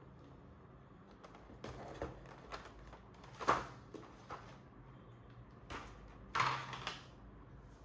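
Packaging and accessories being handled during an unboxing: a few scattered knocks and clicks, the loudest about halfway through, and a brief sliding, scraping sound near the end.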